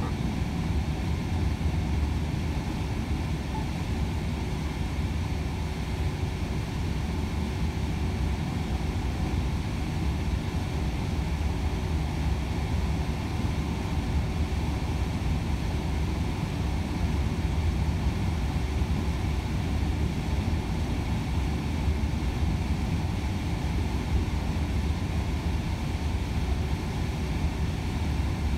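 Steady low drone inside the cab of a Volvo FH 500 truck cruising at motorway speed: its 13-litre straight-six diesel running under even load, mixed with tyre and wind noise.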